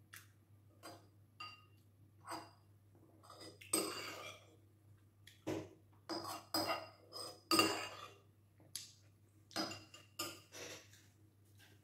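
Metal spoon clinking and scraping against a ceramic soup bowl while eating, a dozen or so short clinks, some ringing briefly. The two loudest, about four and seven-and-a-half seconds in, last about half a second each.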